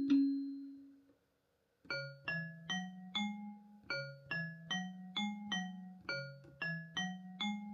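Suzuki Omnichord OM-108 playing one of its voice presets, with an electric-piano-like sound. A held note dies away and there is a moment of silence. Then an even run of short struck notes, about two or three a second, plays over a low bass line.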